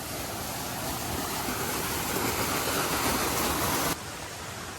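Steady rush of a stream or waterfall at close range, dropping suddenly to a quieter level about four seconds in.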